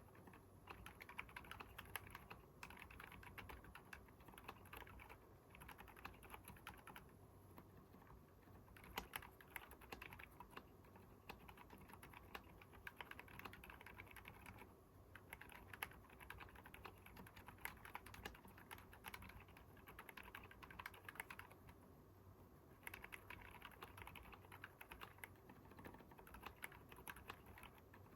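Typing on a Keychron K10 aluminium keyboard fitted with stock Haimu Seasalt silent linear switches. The keystrokes are quiet and soft, coming in fast continuous runs broken by a few short pauses.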